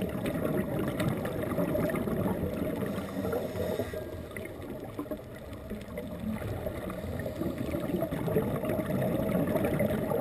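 Muffled underwater noise on a scuba dive: a steady low rush with gurgling, swelling and easing every few seconds.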